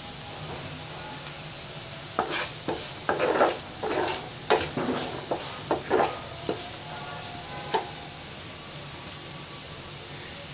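Chopped onions and green chillies sizzling steadily in hot oil in a frying pan, sautéing toward golden brown. A wooden spatula scrapes and stirs them in a run of short strokes from about two seconds in until near the end, then the plain sizzle carries on.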